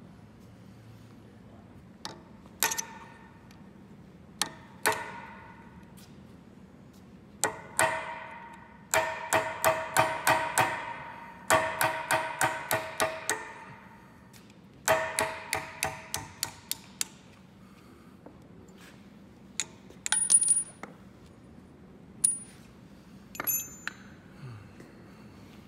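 Sharp metal-on-metal taps with a ringing tone. They come singly at first, then in quick runs of several strikes a second through the middle, with a few light high clinks near the end, as a rusted tapered steel bushing is worked off an electric motor's shaft.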